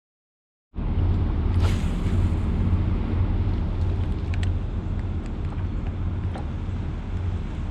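Boat motor running steadily with wind buffeting the microphone, a low rumble that starts abruptly under a second in, with a few faint ticks over it.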